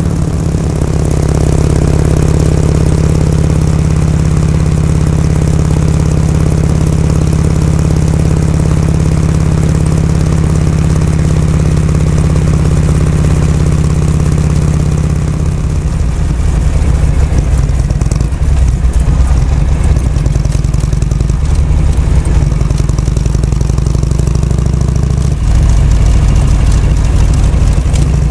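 Harley-Davidson Shovelhead V-twin engine running steadily. About halfway through its beat turns rougher and more uneven.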